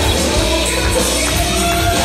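Loud music with a singing voice over a heavy, steady bass line.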